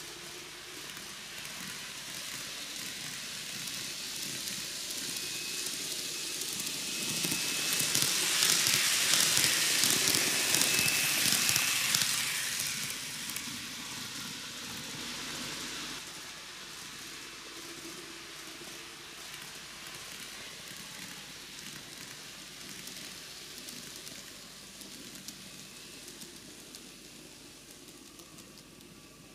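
TOMIX N-gauge model of the JR Hokkaido 733-3000 series train running on its track: a fine rattling hiss of wheels and motor. It grows louder to a peak between about 8 and 12 seconds in, then fades slowly as the train moves away.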